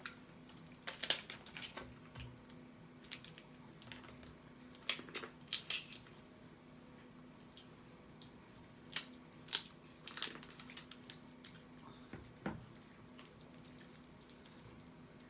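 Close-miked eating of whole lobster and Dungeness crab: scattered sharp cracks, crunches and smacks in several short clusters with quiet gaps between, over a faint steady hum.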